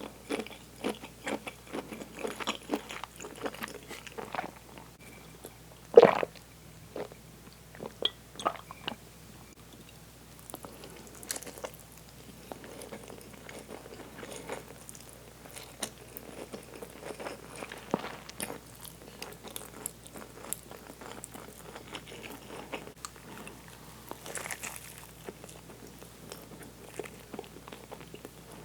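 A person biting and chewing food, with many short mouth clicks crowding the first few seconds. One sharp click about six seconds in is the loudest sound, and steadier, quieter chewing follows.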